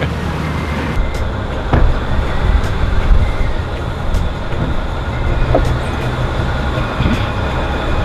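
A vehicle engine running with a steady low rumble, with a few light knocks.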